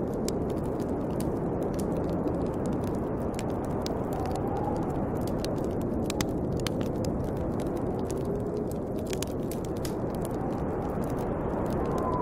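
Snowstorm wind blowing steadily, with faint whistling tones that rise and fall, over the frequent small pops and crackles of a wood fire.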